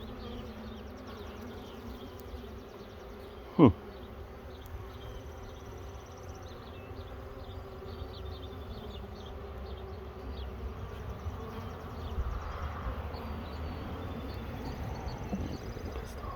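Honey bees from an opened hive buzzing steadily, with one sharp knock about three and a half seconds in.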